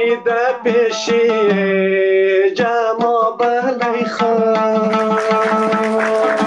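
Hazaragi dambura music: a dambura (long-necked Afghan lute) strummed in quick regular strokes under a gliding melody line, which settles into a long held note about four seconds in.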